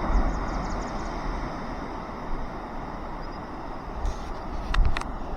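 Wind buffeting the microphone, a steady rushing rumble with gusts, and two sharp clicks near the end.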